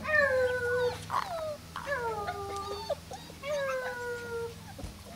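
Puppies whining and yelping during rough play-fighting: a string of about four drawn-out cries, each falling in pitch.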